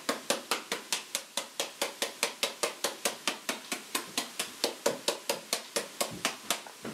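A knife blade hacking rapidly into a hand-held papaya, about five sharp, even chops a second, scoring the flesh into thin strips to shred it.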